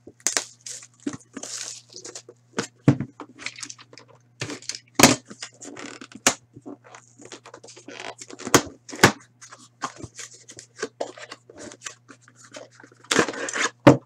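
Plastic shrink wrap crinkling and tearing as it is peeled off a sealed hockey card box, followed by scrapes, clicks and taps as the cardboard box is opened and the metal tin inside is pulled out. There is a loud rustling burst near the end.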